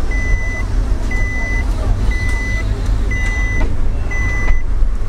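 An electronic warning beep, one steady tone about half a second long, repeating once a second, five times. Under it is the low road and engine rumble of a car in slow traffic, heard from inside the cabin.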